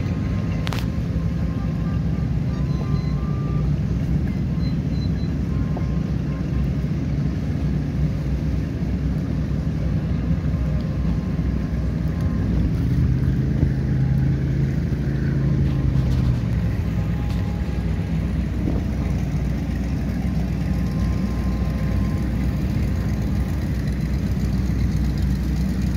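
Motorboat engines running steadily in a low drone, mixed with wind and water noise. About halfway through, the engine note swells and bends in pitch as a boat runs close by.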